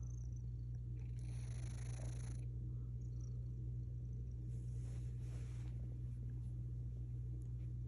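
Sleeping cat making a steady, low, unbroken rumble, with a soft hiss about a second in and again about halfway through.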